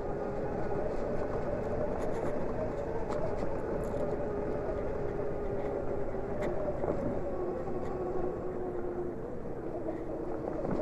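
Zero electric motorcycle under way: a steady motor whine over a continuous rush of wind and road noise. The whine's pitch sags a little in the second half, then climbs again near the end.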